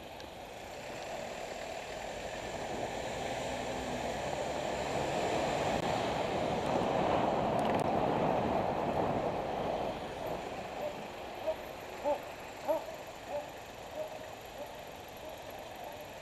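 An over-exerted runner's strained breathing: short, pitched hooting cries with every breath, about two a second, that die away near the end. Before them a rush of noise swells and fades.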